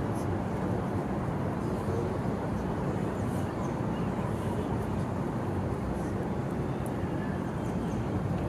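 Steady city street ambience: a low, even rumble of traffic.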